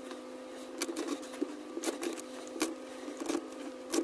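Utility knife trimming the edge of carpet, a string of irregular short scratchy cuts and clicks, over a steady hum.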